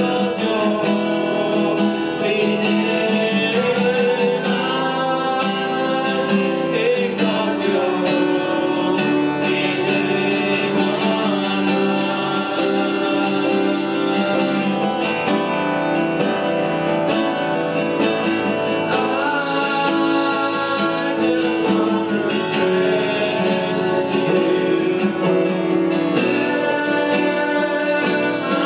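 Live worship song: a man singing a slow melody to his own strummed acoustic guitar, the music running without a break.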